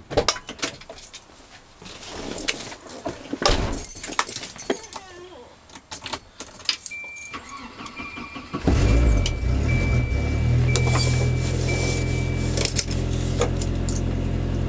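Keys jangling and rustling in the cabin, then about two-thirds of the way through the Volvo 245's naturally aspirated engine with its 3-inch exhaust starts and settles into a steady idle, heard from inside the car. A high warning chime beeps repeatedly just before and during the start.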